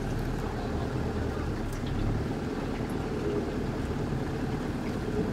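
Toyota 4x4's diesel engine idling, heard from inside the cab as a steady low hum.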